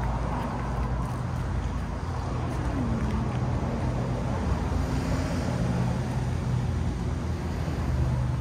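Street traffic: a steady low engine hum under even road noise.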